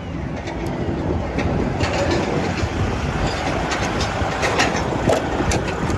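Container crane in a port terminal moving in on its wheels toward the truck: a steady rumble with scattered clanks and clicks.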